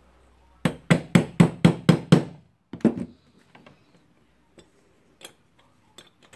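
Hammer blows on a screwdriver seated in a tight, soft screw in an angle grinder's gear head, to shock it loose: six quick strikes about four a second, then two more, followed by faint clicks of handling.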